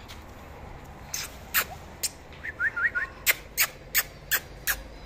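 Sharp clicks, about three a second, starting about a second in, with a quick run of three short rising chirps near the middle.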